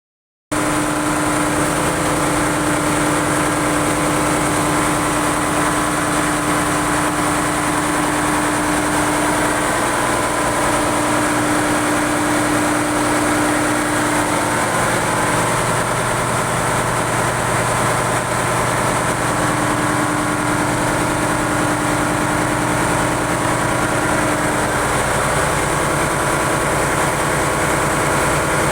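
Ship's engine-room diesel machinery running steadily: a loud, even drone with a constant hum.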